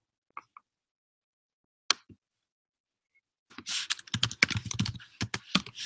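Typing on a computer keyboard: a few single key clicks, then a quick run of keystrokes starting about three and a half seconds in.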